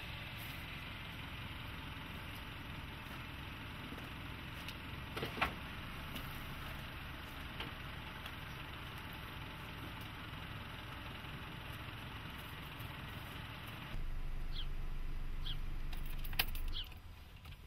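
A car engine running steadily at low revs, with one sharp knock about five seconds in. About three-quarters of the way through it changes to a louder, steadier low hum as heard inside the car's cabin, with a few faint clicks, and it stops shortly before the end.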